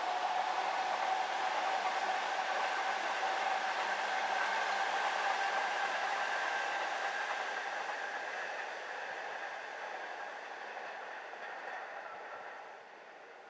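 JR East E233-series electric commuter train on the Keihin-Tohoku line passing, a noisy rush with a steady whine in two tones, fading from about eight seconds in and dropping away sharply near the end.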